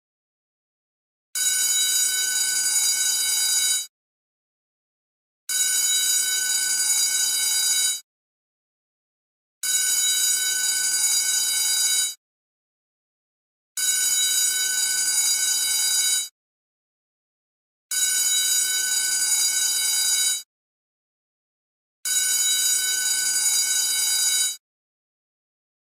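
School bell ringing in repeated bursts of about two and a half seconds, each followed by a second and a half of silence, six times over.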